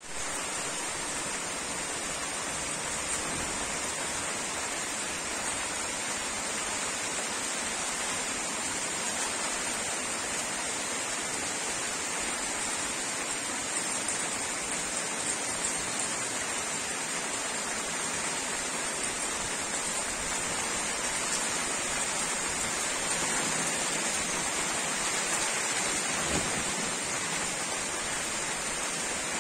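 Heavy rain pouring down steadily, an even hiss of downpour.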